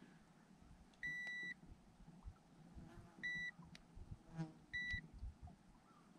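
Handheld digital fish scale beeping three times as its buttons are pressed: one longer beep about a second in, then two short beeps, each a single high tone. Faint handling clicks in between.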